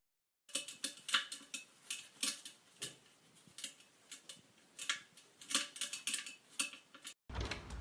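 Irregular light clicks and taps of something small and hard, roughly three a second, stopping abruptly near the end.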